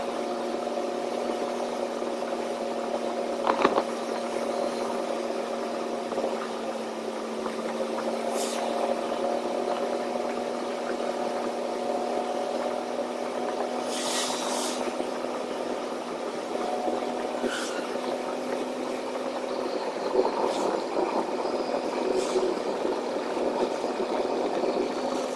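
Semi-truck engine running with a steady hum and held tones, with a few short clicks and knocks and one brief hiss about halfway through.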